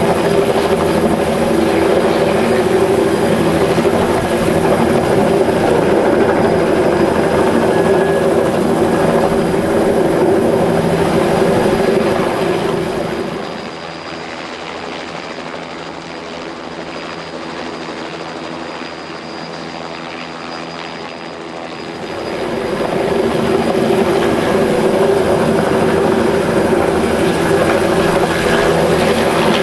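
Helicopter engine and rotor noise, loud and steady. For about eight seconds in the middle it falls to a quieter, duller level, then returns.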